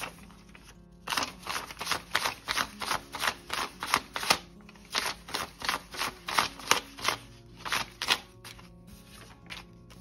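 Paper US dollar bills being counted by hand, each note flicked off the stack with a crisp snap, about three a second. The counting starts about a second in and stops near the end, over soft background guitar music.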